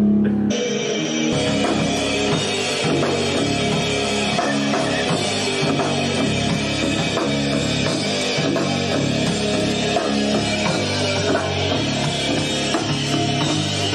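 Rock band (electric guitar, bass guitar and drum kit) playing loudly in a recording studio. It opens on a held bass note, and the full band with drums and crashing cymbals comes in about half a second in and keeps up a steady driving beat.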